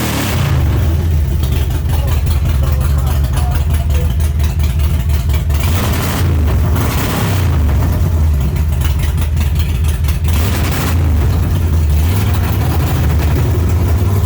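Motorcycle engine running loud and being revved over and over, with brief louder blasts about six and ten seconds in.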